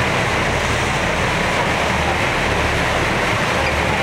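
Motor boat's engine running steadily under way, with water rushing past the hull.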